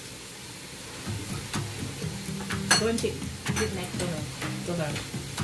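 Mealtime eating noises at a table: scattered clicks and taps of food, shells and dishes being handled, one sharper click near the middle, over a low steady hum.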